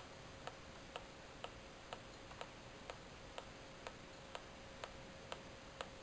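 Faint, regular ticking at about two ticks a second, over a faint steady tone.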